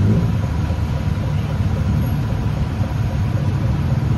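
Steady sound of car traffic on a busy city street, mostly low engine noise.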